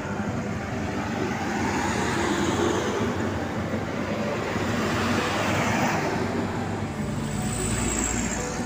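Road traffic passing close by at a busy crossroads: motorcycles and cars going past, then a truck's engine rumbling past near the end.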